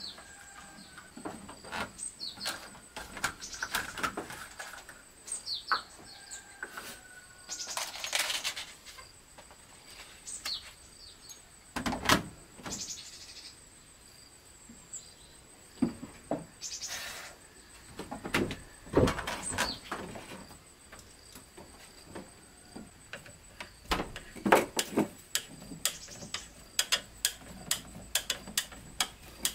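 A hand screwdriver driving screws through a plastic wall basket into wooden slats: scattered knocks and rattles of plastic against wood, then a run of quick, even clicks near the end as a screw is turned. Birds chirp now and then.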